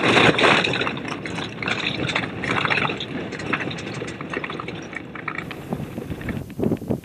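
Wind buffeting the camera's microphone: a loud, rough rushing with crackles that starts suddenly and eases after the first second.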